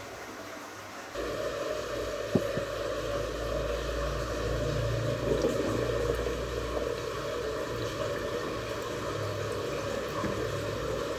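Small motor of a toy boat running steadily in a tub of water; it starts suddenly about a second in, with one sharp click shortly after.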